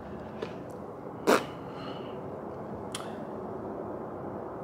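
Quiet room noise with one sharp click about a second in and a fainter click about three seconds in.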